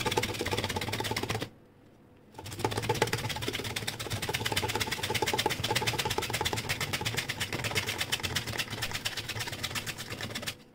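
Raw tapioca (cassava) root pushed rapidly up and down the slicing blade of a steel box grater, a fast, even run of rasping strokes with a short pause about a second and a half in.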